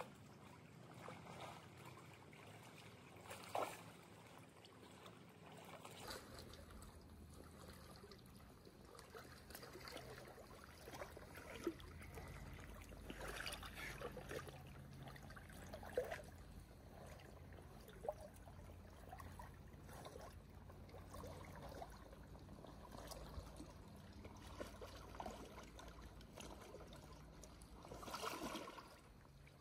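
Shallow river current trickling and gurgling quietly, with scattered small splashes of a person wading through the water in waders; a longer burst of splashing near the end as the wader passes close by.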